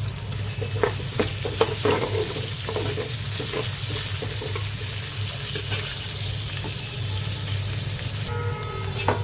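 Sliced onions and green chillies sizzling in hot oil in a pan, with a spatula scraping and clicking against the pan as they are stirred, the clicks most frequent in the first few seconds. A steady low hum runs underneath.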